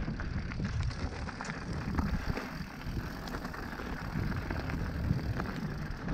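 Mountain bike riding over a rough trail: wind buffets the microphone with a low rumble, and the bike rattles and knocks over the bumps.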